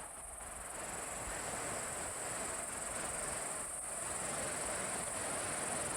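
Steady, high-pitched insect chorus over a soft, even hiss.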